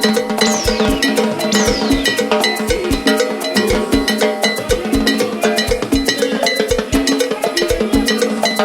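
Instrumental Peruvian chicha (cumbia) backing track without vocals: a percussion-led passage with a steady, even beat and many sharp hand-percussion strikes. Two quick falling sweeps come about half a second and a second and a half in.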